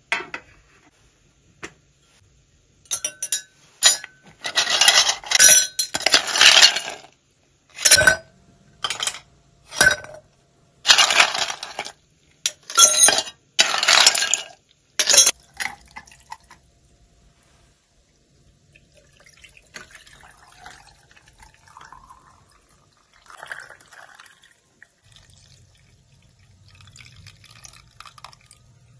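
Ice cubes scooped from a bowl and dropped into amber glass mugs, a run of clattering clinks from about three seconds in to about fifteen. Later, quieter, water poured from a glass jug over the ice.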